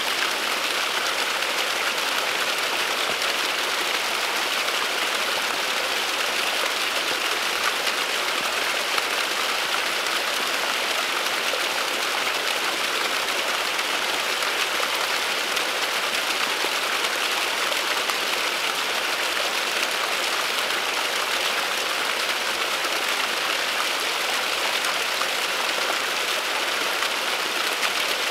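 Small waterfall trickling down a rock face: a steady splashing hiss of falling water.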